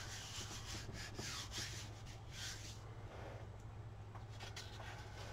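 Hands rubbing a sheet of parchment paper down onto a gel printing plate to lift a ghost print: a series of soft brushing swishes in the first few seconds, fainter scrapes and ticks after.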